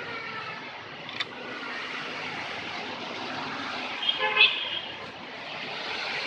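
Suzuki Baleno air-conditioning compressor running with a steady, rough snoring noise, which the uploader blames on defects in the compressor's piston and block. A brief horn toot about four seconds in is the loudest sound.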